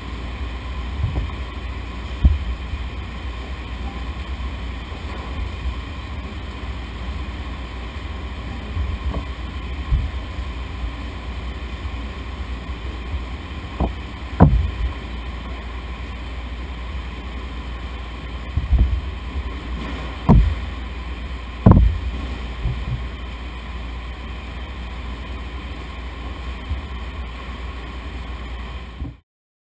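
Potato washing and debris-removal machinery running with a steady hum and low rumble, with scattered thumps and a few louder knocks in the second half. The sound cuts off abruptly just before the end.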